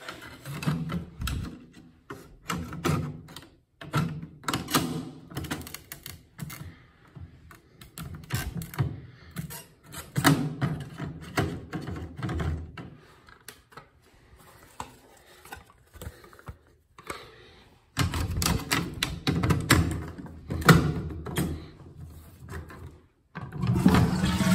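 Repeated sharp clicks and knocks of hard parts being handled and snapped into place, as the last piece of a wall-hung toilet installation is fitted. Near the end a toilet flush starts, a steady rush of water.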